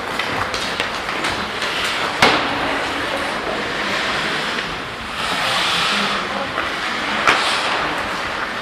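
Ice hockey play heard from the stands: skates scraping on the ice over the arena's steady noise. There is a louder scraping swell midway, and two sharp clacks, one about two seconds in and one about seven seconds in.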